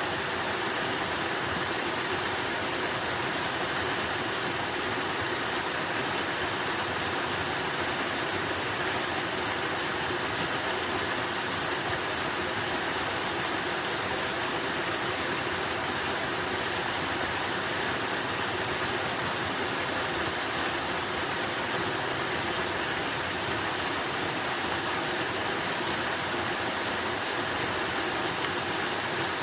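Water rushing steadily, an even hiss that does not change.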